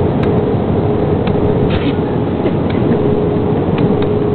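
Airliner cabin noise: a steady drone of engines and airflow with a thin steady whine. A few light clicks and a brief rustle from handling the camera.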